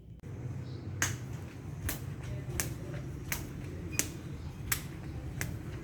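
Sharp, evenly spaced clicks, about one every 0.7 seconds and starting about a second in, over a steady low hum.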